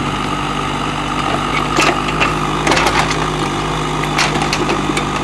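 Mini excavator's engine running steadily as its bucket digs through soil and roots, with several sharp cracks and snaps of roots and old wood breaking.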